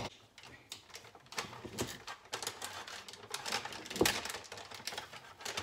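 Metal measuring cup clinking and scraping against a glass jar as sugar is scooped out: a run of irregular clicks and rattles, with a sharper knock about four seconds in.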